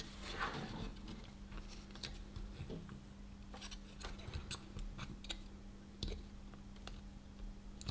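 Faint handling noise from fingers working a radio circuit board and its ribbon cable: scattered small clicks and rustles, over a faint steady hum.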